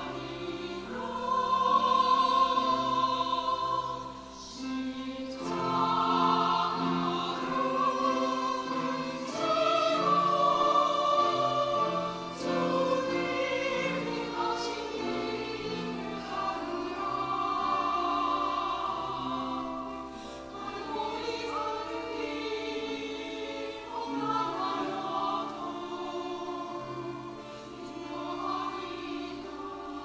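Church choir of women's voices singing a sacred anthem with piano accompaniment, the sound swelling and falling back from phrase to phrase.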